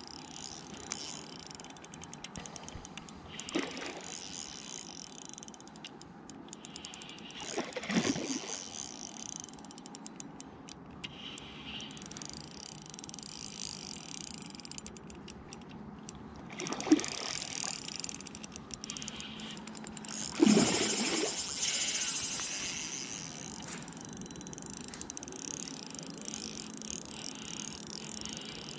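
Ultralight Shimano spinning reel being cranked steadily, its gears whirring and clicking, while a hooked trout is played. A few louder thumps break in, the loudest about twenty seconds in.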